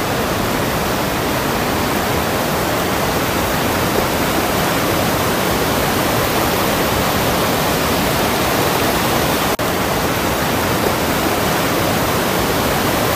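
River rapids rushing over rocks and small cascades: a steady, loud rush of white water, with a brief dip in level about nine and a half seconds in.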